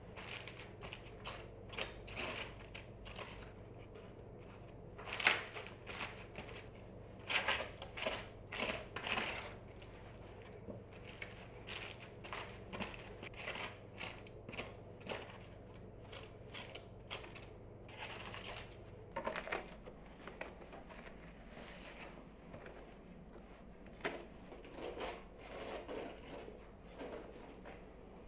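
Flat metal spatula spreading buttercream over thin, crisp Napoleon cake layers and scooping more cream from a bowl: irregular scraping and crackling strokes with occasional clicks of metal against the bowl.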